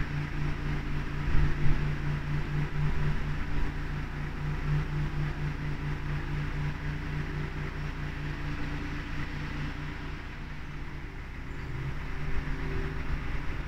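Narrowboat engine running steadily at a low cruising speed, an even drone that holds the same pitch throughout.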